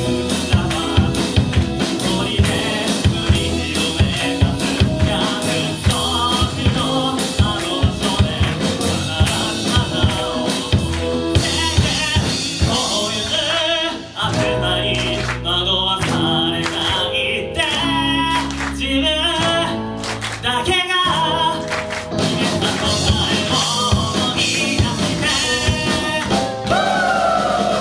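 A live band playing: sung vocals over electric guitars and a drum kit. About halfway through the drums thin out for a quieter stretch, then come back in full a few seconds later.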